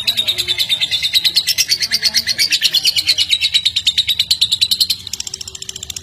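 Caged lovebird's rapid chattering trill, about ten notes a second, running unbroken, then dropping in level and turning higher about five seconds in.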